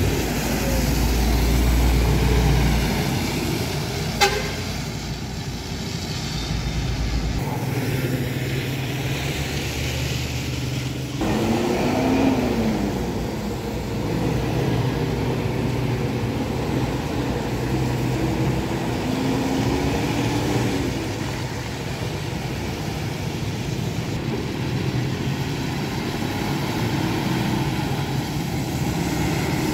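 Provincial buses, a King Long XMQ6101Y, a Hino RN8J Grandecho II and a Zhongtong LCK6118H, driving past one after another on a rain-wet road: diesel engines running with tyre hiss. The sound changes abruptly twice, about a quarter and a third of the way through, where one pass cuts to the next.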